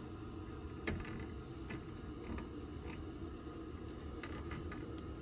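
Light clicks and knocks from plastic bypass valves on a camper water heater's PEX lines being turned by hand, the sharpest click about a second in, over a steady low background hum.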